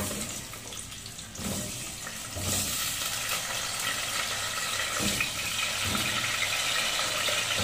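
Raw potato chunks sizzling as they are dropped into hot oil in an aluminium pot. The frying hiss grows louder about two and a half seconds in as more pieces go in, with a few soft knocks as they land.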